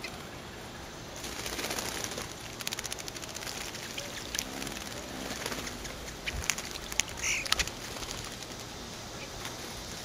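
Bluebirds bathing in a shallow bird bath, their wings beating the water in a run of small splashes and patters that starts about a second in. There is one brief high chirp about seven seconds in.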